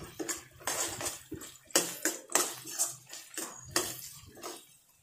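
Steel spoon scraping and tapping against a ceramic-coated wok as onions, green chillies and ginger-garlic paste are stirred and sautéed in oil: irregular strokes about once or twice a second, stopping near the end.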